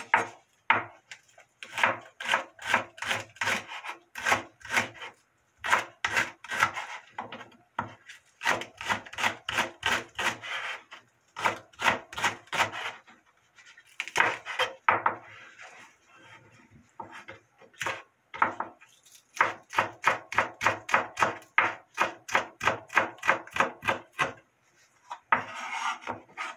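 Chef's knife slicing green onions on a bamboo cutting board: quick runs of knocks, about five a second, broken by short pauses.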